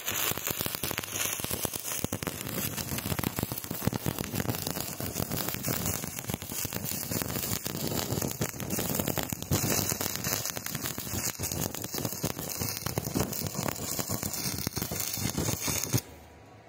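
Stick-welding arc from a coated electrode crackling steadily as it lays a bead. It strikes up at once and breaks off sharply near the end.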